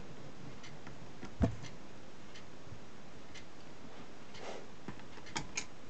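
A few light clicks and taps of hand tools against a circuit board during desoldering, a flux applicator and then a soldering iron on the heatsink tabs, over a steady faint hiss. One sharper click comes about one and a half seconds in, and two small ticks near the end.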